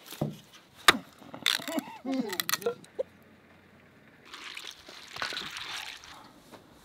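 Hands swishing and rubbing kernels in a metal bowl of water, sloshing for a couple of seconds in the second half. Earlier come a sharp click about a second in and a few short pitched calls.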